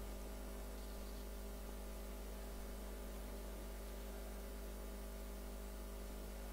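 Steady electrical mains hum with faint hiss, unchanging throughout.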